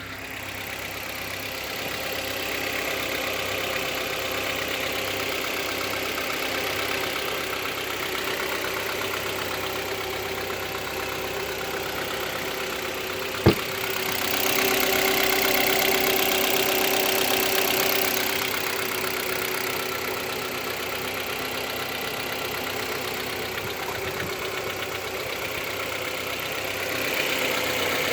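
Kia Cerato engine idling during a cold warm-up, heard from underneath the car, with a light ticking knock that the owner takes for piston slap. This knock comes on only when the engine is cold and fades once it warms. A single sharp click about 13 seconds in, and the engine is a little louder for a few seconds after it.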